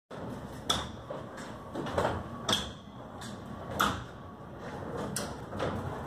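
A 24 × 10 ft glass-panelled overhead door lowering under its variable-speed DC drive. It gives a steady low running noise, with about five sharp clacks at irregular intervals as it comes down.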